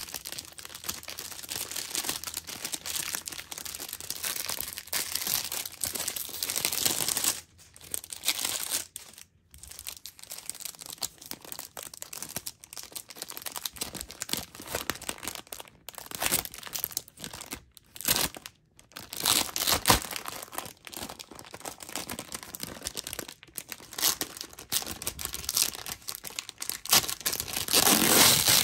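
Plastic wrapper of a cherry fruit roll crinkling as it is opened, then the sticky red fruit-leather sheet being peeled away from its clear plastic backing film. This comes in irregular crackles with a few sharp snaps, loudest just before the end.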